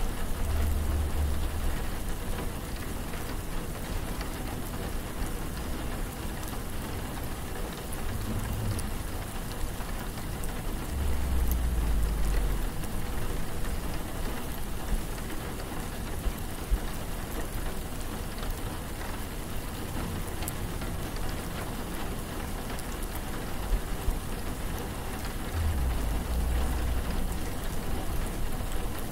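Steady rain hissing, with a deep low rumble swelling four times: at the start, twice between about eight and thirteen seconds in, and again near the end.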